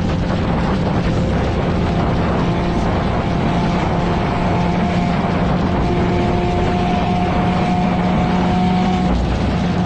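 Mazda Miata's four-cylinder engine running steadily, a constant drone with rushing noise over it. A fainter higher whine sits above the drone and stops near the end.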